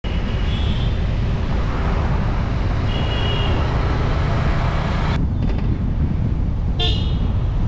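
Wind buffeting a roof-mounted GoPro's microphone on a moving car, heard as a heavy, steady low rumble mixed with road noise. A few brief high-pitched chirps sound over it now and then.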